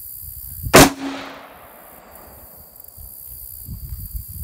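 A single shot from a CMMG MK4T AR-15 rifle in .223 Remington: one sharp crack a little under a second in, with a short echoing tail that dies away over about a second.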